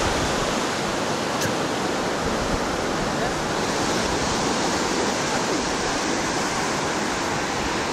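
Steady rushing sound of sea surf on a beach, an even noise that neither swells nor fades.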